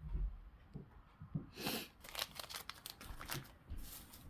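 Packaging being handled: faint scattered crinkles and taps, with a brief louder rustle about one and a half seconds in.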